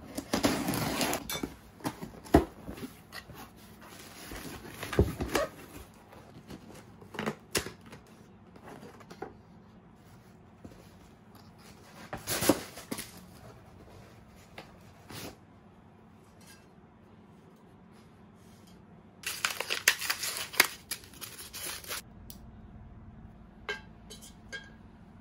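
Scissors slicing through packing tape on a cardboard box, then cardboard and packaging being handled and torn open in short bursts of rustling and tearing, with scattered knocks. The longest burst lasts a few seconds, about three-quarters of the way through.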